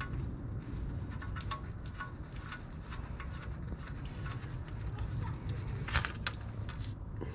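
Scattered light clicks and taps of a part being handled and put on by hand, with a brighter cluster of clicks about six seconds in, over a low steady rumble.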